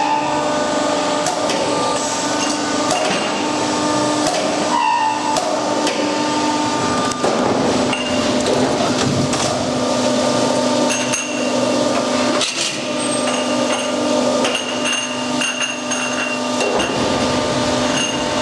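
Factory machinery running with a steady hum and scattered metal clanks and knocks.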